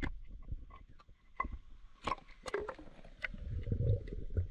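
Shallow seawater among shoreline rocks: scattered sharp clicks and splashy taps, then from a little past three seconds a steady low muffled rumble of water heard underwater.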